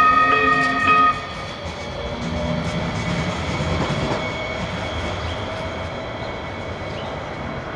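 Light rail vehicle pulling away from a station. It gives a held horn blast of several steady tones that cuts off about a second in, then its running noise on the rails fades as it moves off.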